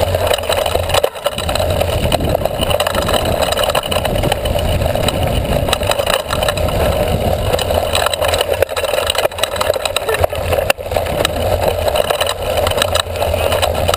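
Mountain bike rolling fast down a dirt trail, picked up by a camera mounted on the seatpost: a steady rumble and rattle of the tyres and frame over the ground, with many small knocks.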